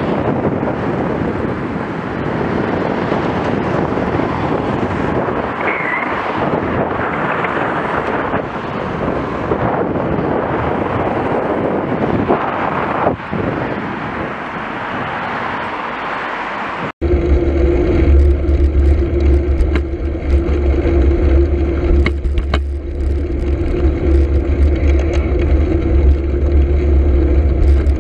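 Steady wind and road noise on a bike-mounted camera's microphone while cycling along a road. About 17 seconds in, the sound cuts abruptly to a louder low rumble with a steady hum.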